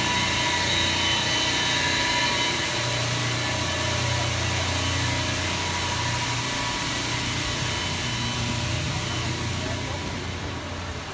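Steady drone of wastewater treatment plant machinery: a low hum with a high whine above it, growing fainter near the end.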